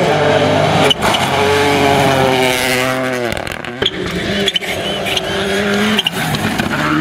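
Rally cars' turbocharged engines at high revs passing on a gravel stage. The engine pitch rises and falls with a few short sharp cracks, and it falls away steeply about three seconds in. The sound breaks off abruptly twice as it jumps from one car to another.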